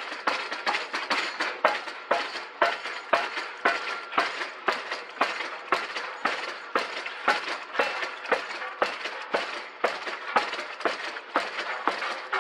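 Crawler-mounted piling rig's hammer driving a pile into the ground: steady metallic strikes, about three a second, each with a short ringing clang.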